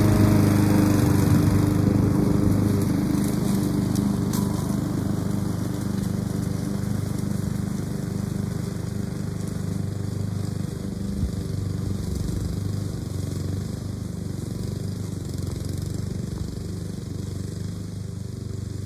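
Walk-behind lawn mower running steadily while cutting grass, growing gradually fainter as it is pushed away.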